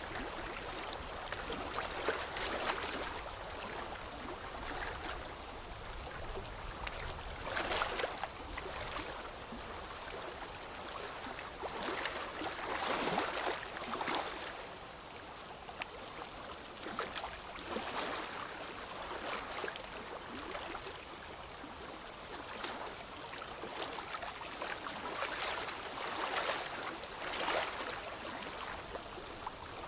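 Pencil strokes scratching on paper, an irregular run of short scraping swells.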